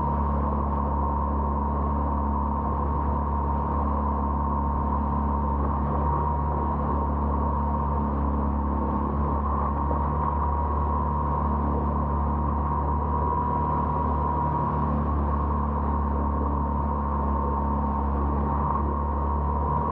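Boat engine running steadily under way, a low drone with a steady high whine over it.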